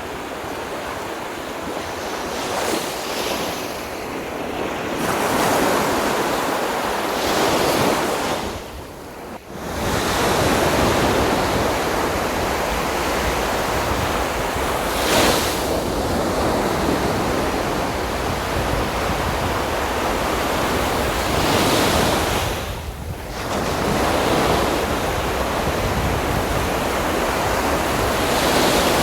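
Sea waves breaking and washing up on a beach, swelling and ebbing in turn, with wind buffeting the microphone.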